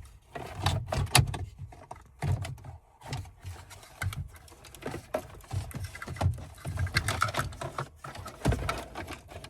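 Irregular plastic clicks, knocks and rubbing as an Android head unit is worked into a car dash and pushed onto its push tabs, with dull thumps among the clicks.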